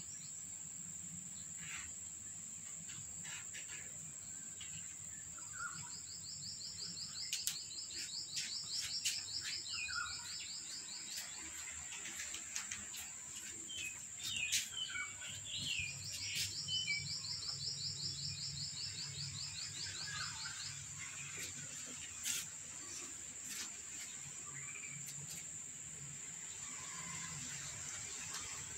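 Background insect sound: a steady high-pitched drone with two long, rapidly pulsing buzzing trills of about six and eight seconds, and scattered short bird chirps over it. Light clicks and taps come and go.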